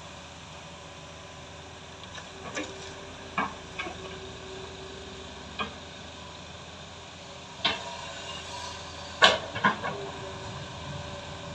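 Crawler excavator working: its diesel engine and hydraulics run steadily with a held whine, and short sharp clanks and thuds sound every second or two as the bucket swings to the dump truck and back to dig, the loudest about nine seconds in.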